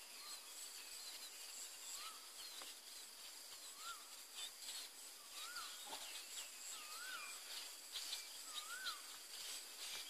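Rural outdoor ambience: a bird repeats a short rising-and-falling whistle every second or so, growing a little louder, while other birds chirp higher and insects keep up a steady high drone.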